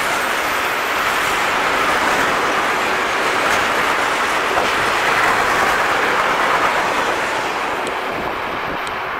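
Freight train of tank wagons rolling past: a steady, loud rolling noise of steel wheels on rails that fades away over the last couple of seconds as the end of the train passes.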